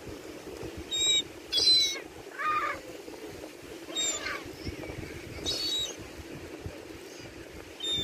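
Gulls calling while squabbling over food: a series of about five short, harsh calls, the loudest about two seconds in.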